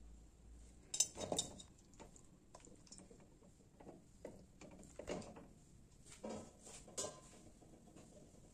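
Raw fish pieces dropped by hand into an empty stainless steel pot: a series of separate knocks and clinks against the metal, the loudest about a second in.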